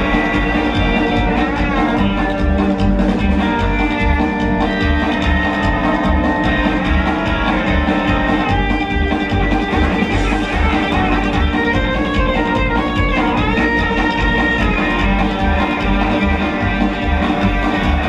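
Rockabilly band playing live without singing: a Gretsch hollow-body electric guitar picks lead lines over a steady upright bass and drum beat.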